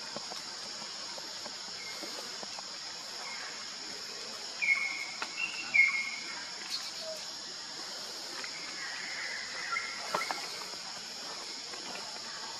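Steady high drone of insects, with a few short, high squeaky calls over it, the loudest about five and six seconds in and a longer run of them near ten seconds.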